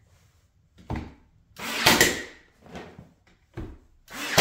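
A cordless nail gun fastening pine window trim: about five separate knocks and thuds of the gun firing and the wood being pressed into place, with short pauses between them.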